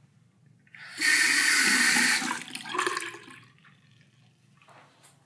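Sink faucet turned on, water running into the basin for about a second, then shut off; a second, shorter run follows about half a second later.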